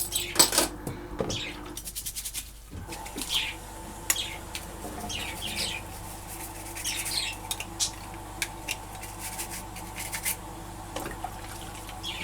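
Budgies chirping again and again in short falling calls, with a quick run of clicks about two seconds in.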